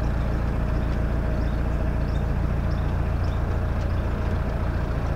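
Narrowboat's diesel engine running steadily while cruising, an even low hum.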